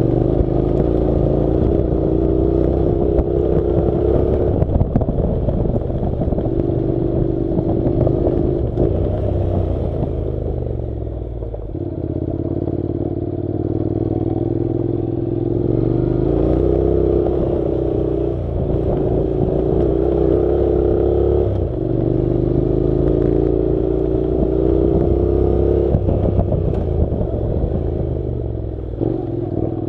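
Honda NC700's 670 cc parallel-twin engine running at low, steady revs on a dirt road, its note breaking and picking up again every few seconds as the throttle is eased off and reopened, with clatter from the rough surface underneath.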